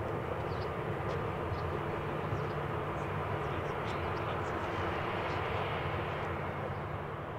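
Embraer E190-E2's Pratt & Whitney PW1900G geared turbofan engines running as the airliner rolls along the runway after landing: a steady whine over a rumble, growing fainter near the end.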